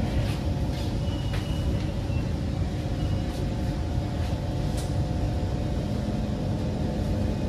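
SMRT Kawasaki C151 electric multiple unit running, heard from inside the carriage: a steady rumble of wheels on the track with a few light clicks. A low steady tone from the train comes in near the end.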